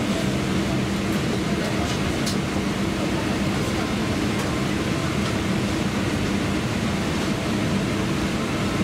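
Steady cabin noise inside a Boeing 777-300ER airliner during pushback: the hum of its air-conditioning and systems, with occasional faint clicks.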